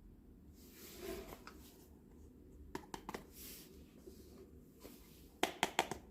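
Small hard miniature toy kitchen pieces being handled: soft rustling about a second in, a few light clicks midway, and a quick run of four or five sharper clicks and taps near the end.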